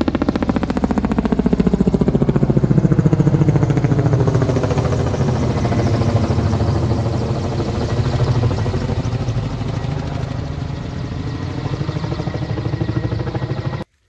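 Coaxial-rotor firefighting helicopter with a slung water bucket flying low overhead: rapid rotor chop with engine whine, loudest a few seconds in, its pitch falling as it passes. The sound cuts off suddenly near the end.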